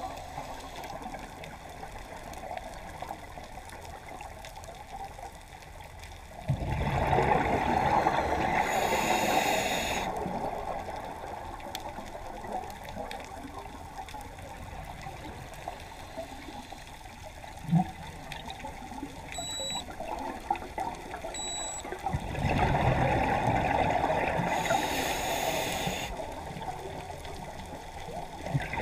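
Scuba regulator heard underwater: two long rushes of exhaled bubbles, each lasting about three to four seconds, about seven seconds in and again about twenty-two seconds in. Between them is a quieter bubbling hiss, with one sharp knock in the middle.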